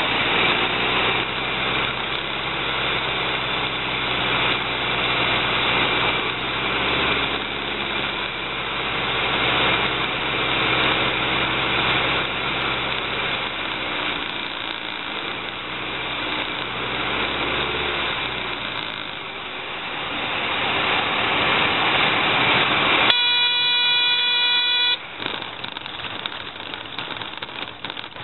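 Cabin noise of a Mooney M20C's four-cylinder Lycoming O-360 engine and propeller with wind rush on final approach. About 23 seconds in, a steady warning horn sounds for about two seconds, typical of the stall warning horn in the landing flare. The noise then drops sharply to a quieter engine at low power as the plane rolls out on the strip.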